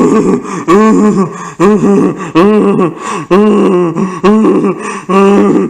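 A cartoonish character voice making a steady series of short, strained gasping or grunting sounds, about one or two a second. Each sound rises and then falls in pitch.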